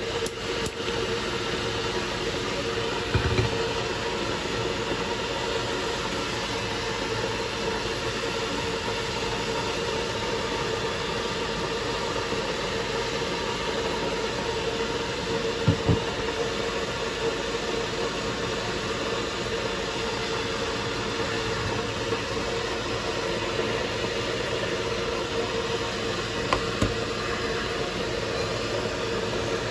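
A lit gas stove burner running with a steady hiss and hum, with a few soft knocks of a pot on the burner grate.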